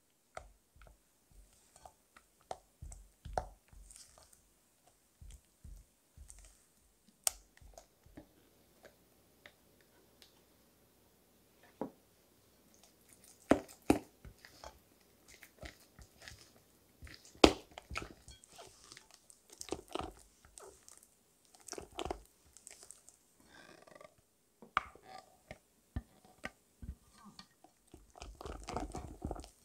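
Spatula mixing melted dark chocolate into cream cheese in a glass bowl, then folding in half-whipped cream: irregular sticky squelches and scrapes against the glass, with a few sharp taps.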